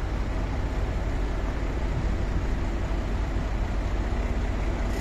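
Heavy diesel engine running steadily close by, a low, even sound with no change in speed.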